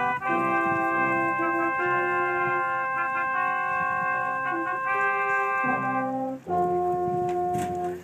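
Brass quintet playing live: several held notes sounding together as chords that change every second or so, with a brief break about six seconds in before the playing resumes.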